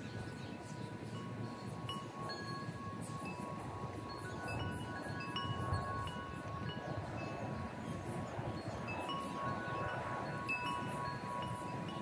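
Wind chimes ringing in a breeze: several clear tones at different pitches sounding at irregular moments and ringing on, over a low rush of wind.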